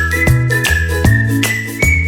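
Background music: an upbeat tune with a steady beat, bass notes and a high whistle-like melody line.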